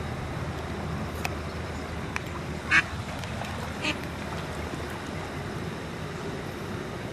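Eastern spot-billed duck quacking twice, a loud short quack near the middle and a softer one about a second later, over a steady low rumble.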